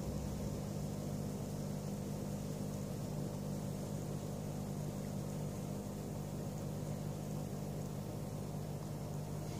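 Steady low hum with a faint hiss, unchanging throughout, with no distinct events.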